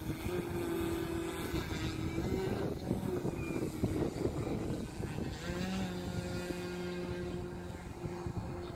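Extreme Flight Extra 300 RC plane's brushless electric Xpwr 40cc motor and 22x10 propeller droning, its pitch wandering as the throttle is worked, with a step up in pitch about five and a half seconds in.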